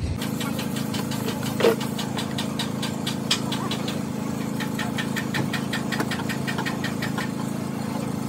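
A steady low machine hum with many light metallic clicks and scrapes from hand work on a stripped diesel engine block, and one louder metal clank about a second and a half in.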